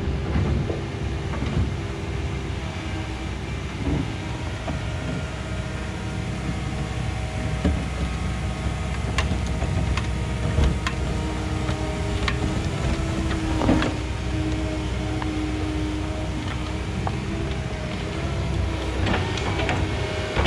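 Komatsu 170 excavator's diesel engine running steadily while it digs, with the bucket knocking and scraping against soil and stones a few times.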